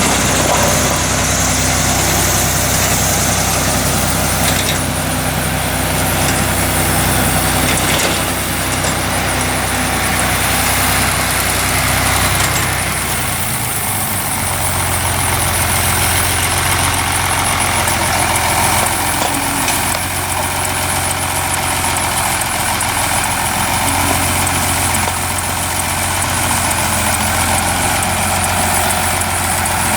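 Heavy vehicle engine running steadily, its low note changing about 13 seconds in.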